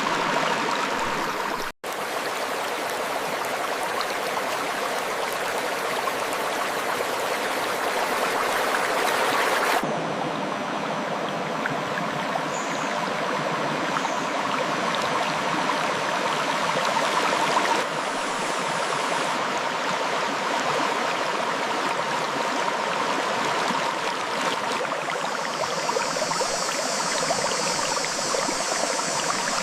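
Clear river water flowing between rocks: a steady rush of water, with a momentary dropout about two seconds in and an abrupt change in tone about ten seconds in.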